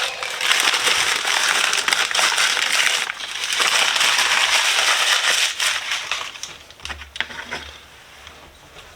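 Packing material being unwrapped and crumpled, a loud continuous crinkling for about six seconds with a brief break near three seconds, then thinning into scattered crackles.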